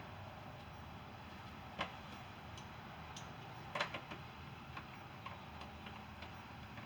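Hand ratchet clicking faintly in short, uneven strokes as a bolt is worked loose, with a sharper click about two seconds in and a small cluster of clicks about four seconds in.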